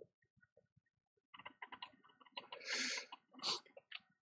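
Faint small clicks and two short scratchy strokes of a fine blade scraping the layers off an iPhone 6 logic board, the first stroke about two and a half seconds in and a shorter one about a second later.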